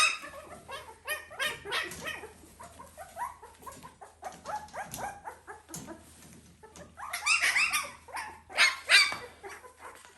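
Newborn puppy crying in a rapid string of short, high squeals and yelps, busiest near the start and again about seven to nine seconds in, fainter in between.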